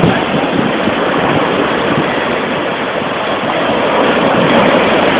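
Ocean surf breaking and washing up the sand in a steady rush.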